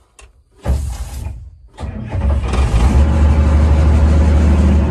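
Fiat-Allis excavator's diesel engine being started with its rebuilt starter: a short burst of cranking about a second in, then the engine catches about two seconds in and runs steadily and loudly, heard from inside the cab. The rebuilt starter works.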